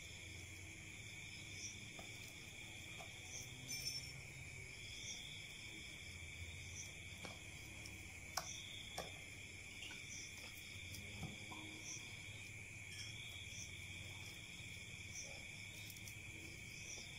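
A faint, steady chorus of night insects trilling on several high pitches, with regular pulsing calls above. Over it come a few soft clicks and rustles of hands tying string around a plastic-wrapped soil ball on a branch.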